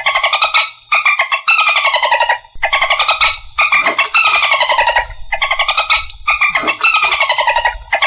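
Dolphin calls: about ten buzzy, rapidly pulsed squawks in quick succession, each gliding up or down in pitch, with short gaps between them.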